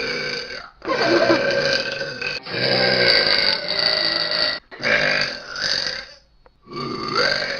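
A person burping: a run of long, drawn-out burps, one after another with short breaks, the longest about two seconds.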